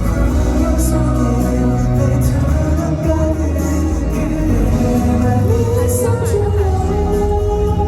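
Pop ballad played live over a sound system, with a steady beat and singing. Near the end a singer holds one long note.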